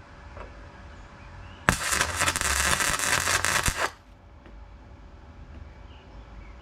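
MIG welder arc crackling on thin sill steel in one burst of about two seconds, starting sharply about two seconds in and cutting off suddenly.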